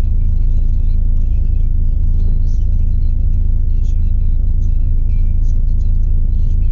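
DAF Euro 5 truck's diesel engine running, heard from inside the cab as a steady low rumble.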